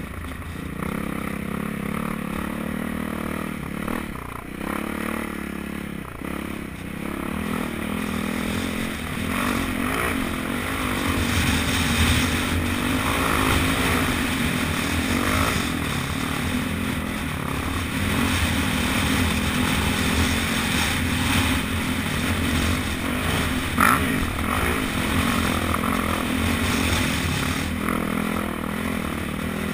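Dirt bike engine running as the bike is ridden, its note rising and falling with the throttle, with a sharp knock about 24 seconds in.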